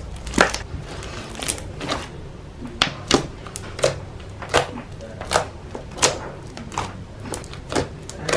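Slime being pressed and worked by hand, giving sharp wet pops and clicks roughly every ¾ second as air pockets burst.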